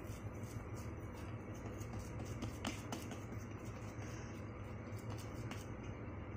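Fingers patting soft, sticky pumpkin dough flat on a damp cotton cloth, making a few faint soft taps over a low steady hum.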